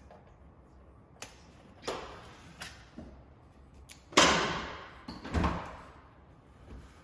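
A Keurig coffee maker and its parts being handled during set-up: a series of separate clicks and knocks. The loudest knock comes about four seconds in and trails off over about a second, with another about a second later.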